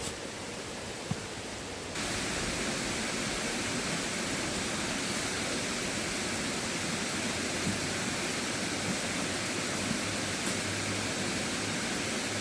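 Steady rushing of river water, an even noise that gets louder about two seconds in, with a few faint clicks.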